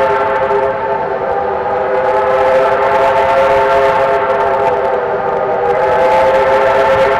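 Steam whistle of a Victorian Railways R class locomotive blown in one long, unbroken blast, several tones sounding together as a chord.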